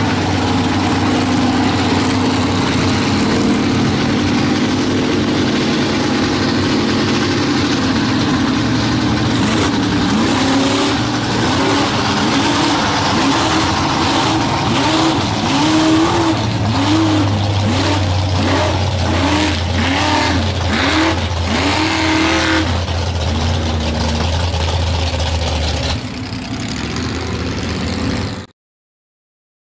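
Small-block Chevy V8 of a mega mud truck running hard, its throttle pumped in quick rise-and-fall revs about once a second through the middle stretch. The sound drops in level near the end and then cuts off.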